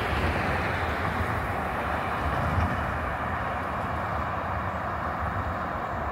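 Road traffic passing over the crossing: car tyre and engine noise on asphalt, slowly fading as the vehicles move off, over an uneven low rumble.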